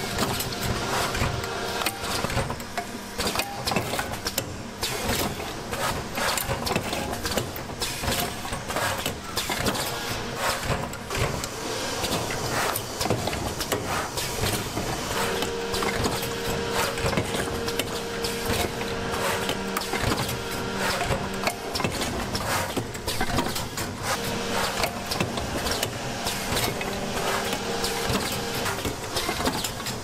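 Production machinery running with dense, rapid mechanical clicking and clatter over a steady hum; the hum grows stronger about halfway through for several seconds.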